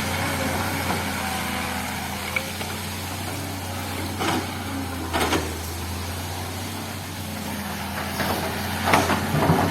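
Diesel engine of a heavy earthmoving machine running steadily at work, with a few short knocks and scrapes mixed in, the loudest near the end.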